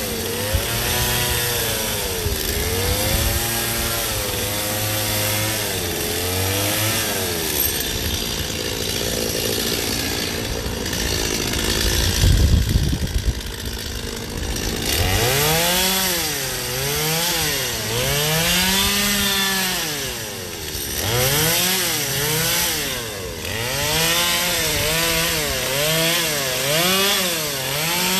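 Gas chainsaw cutting ice, its engine pitch rising and falling over and over as the throttle is worked, with a louder, harsher stretch of cutting about halfway through.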